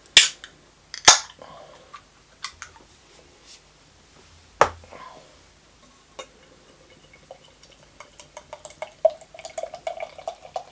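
Aluminium beer can cracked open by its pull-tab, two sharp clicks about a second apart, then a single knock a few seconds later. Near the end, beer is poured from the can into a glass, a steady pouring sound with many small ticks.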